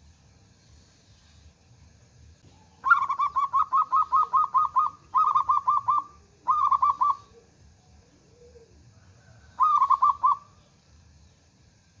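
Zebra dove cooing in four bursts of rapid staccato notes. The first and longest starts about three seconds in, two shorter ones follow close behind, and a last one comes near the end.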